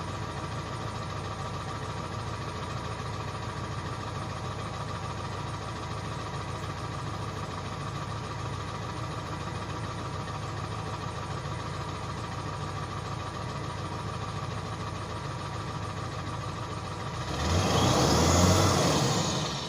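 7.3-litre turbo diesel V8 idling steadily after a cold start. Near the end it is revved once, getting louder for about two seconds, and its turbo whistle starts to fall in pitch as the revs drop.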